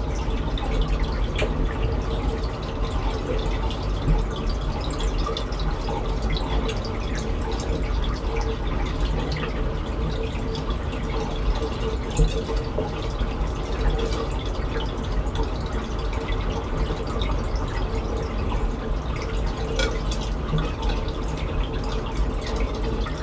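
Steady water trickling and dripping with many small splashes and bubbles, over a faint steady hum: the water circulation of a reef aquarium.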